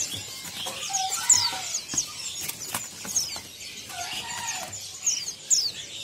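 Many caged songbirds chirping together: quick, high notes falling in pitch over and over, with a few lower whistled notes and now and then a short flutter or knock.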